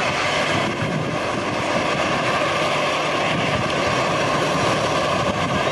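Airbus A340 jet engines running, heard outdoors as a steady rush of noise with a faint high turbine whine.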